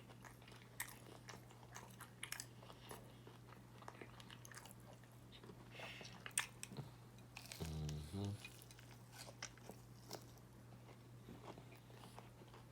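Close-miked chewing and mouth sounds of someone eating, with many small wet clicks and one louder click about six seconds in. About halfway through comes a short, low two-part hum from the throat, and a faint steady low hum runs underneath.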